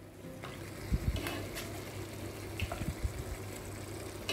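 Cooked mutton pieces tipped into a pan of bubbling masala gravy, landing with a few soft, wet thuds over the steady simmering of the sauce.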